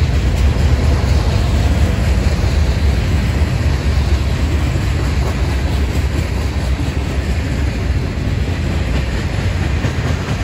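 Freight cars of a mixed manifest train (hoppers, autoracks, tank cars) rolling past: a steady, loud rumble of steel wheels on the rails.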